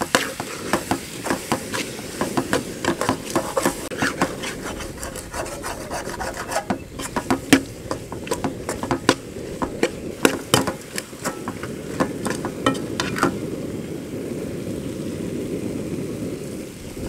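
Metal perforated ladle stirring and scraping a thick conch meat masala in a large metal pot, with many irregular clicks and knocks of the ladle against the pot.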